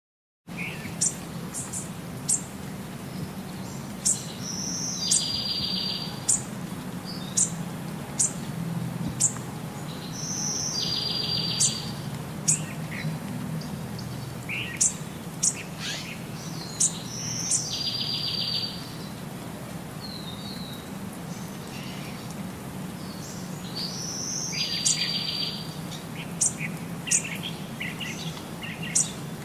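Small birds chirping: short, very high chirps every second or two and a rapid trill that comes back about every six seconds, over a steady low hum.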